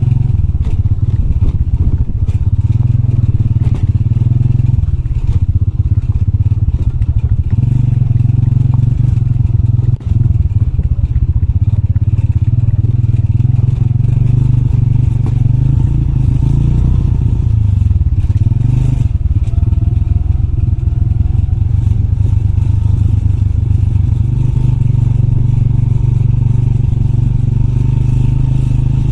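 Motorbike engine running steadily under a rider, with rattling and scraping from riding over a rough off-road trail.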